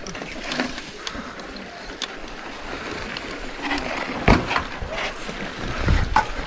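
Mountain bike rolling and hopping over slickrock: tyre noise, rattling of the bike and wind on the microphone, with sharp knocks about four seconds in and again near the end.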